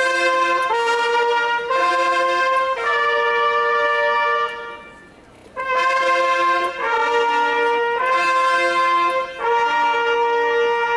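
A group of long straight herald trumpets playing a fanfare together: two phrases of held notes stepping between a few pitches, with a pause of about a second between them.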